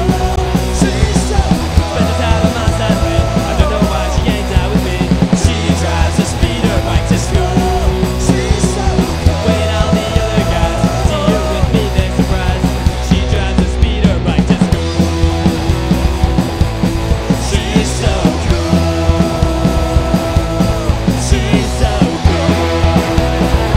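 Loud rock music with a steady drum beat and long held melody notes.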